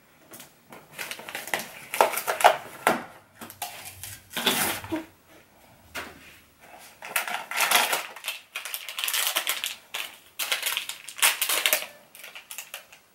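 Foil blind-box packaging being crinkled and torn by hand, in irregular bursts of crackling rustle with brief pauses.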